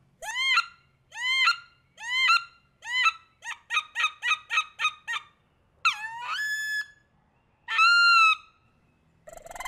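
A single-reed, high-impact plastic wood duck call blown in a wood duck's sitting sounds. It gives four rising-and-falling squeals, a quick run of short notes, then two longer squeals. Near the end comes a buzzy trill made by rolling the tongue into the call, the sound wood ducks make when splashing together on the water.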